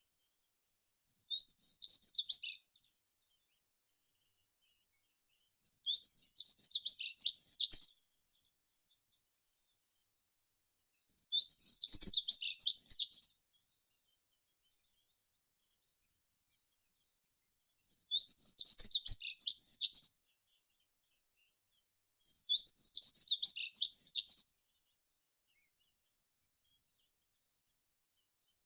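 A songbird singing a short, high, rapid warbled phrase about two seconds long, five times over with pauses of a few seconds between, and faint chirps in some of the pauses.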